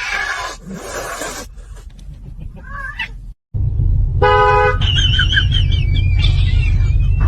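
A car horn honks once, briefly, about four seconds in, over a steady low engine and road rumble that begins just before it. A wavering high-pitched squeal follows the honk.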